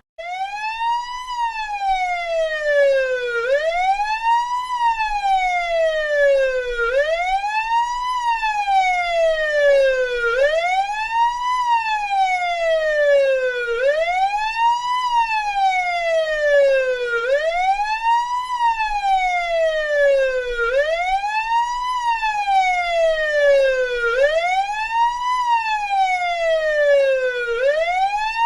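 Russian police siren wailing in a steady repeating cycle. Each cycle is a quick rise in pitch followed by a slower fall, about every three and a half seconds.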